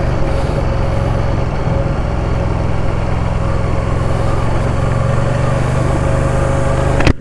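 Ducati Diavel's V-twin engine running steadily at an even engine speed, with a thin steady higher tone held above the engine note. The sound cuts off abruptly just before the end.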